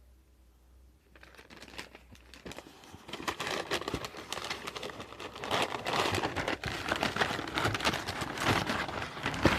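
Packaging being handled and unwrapped, crinkling and rustling with many small crackles, starting about a second in and going on in a dense, uneven stream.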